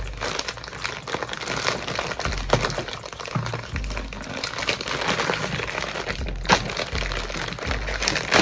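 Plastic poly mailer bag crinkling, crackling and tearing as a key is poked through it and the bag is ripped open, with music playing in the background.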